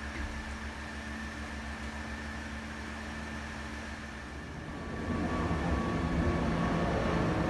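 A steady background hum with faint steady tones in it, growing louder about five seconds in.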